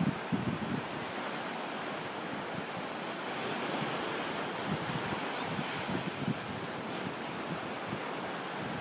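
Ocean surf breaking and washing up the beach in a steady hiss, with wind buffeting the microphone now and then.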